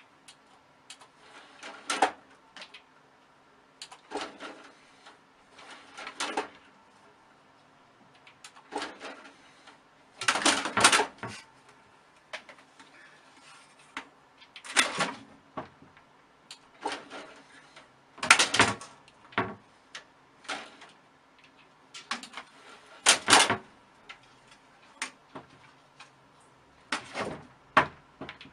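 A cat knocking and scrabbling against a computer tower and a curtain: irregular knocks and rattles every second or two, with the loudest clusters about ten, eighteen and twenty-three seconds in.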